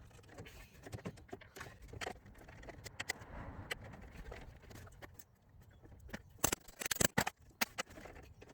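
Scattered clicks and knocks of hands and tools working at the gear selector on top of the gearbox, which is being pulled off its shaft, with a cluster of louder sharp knocks near the end.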